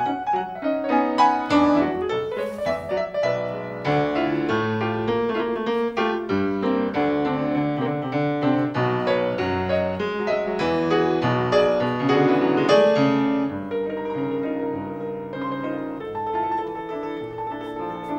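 Solo piano playing a busy passage of quick notes and chords. It grows quieter and sparser over the last few seconds.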